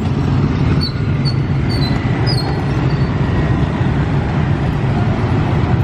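Steady low rumble of street traffic, with a few short, faint high chirps in the first couple of seconds.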